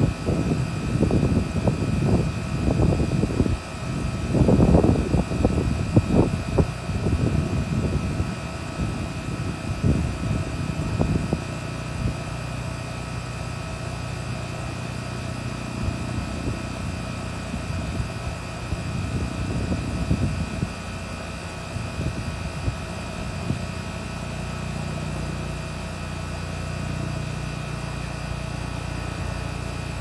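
Outdoor central air-conditioner condenser unit running: a steady hum from its compressor and condenser fan, with a faint steady high whine. Irregular low rumbling gusts come and go over the first ten seconds or so, then the unit's hum carries on alone.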